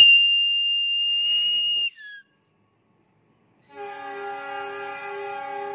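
Train conductor's hand whistle blown in one steady high blast of about two seconds, the conductor's signal that the train is ready to depart. After a short gap, a steady low chord is held for about three seconds.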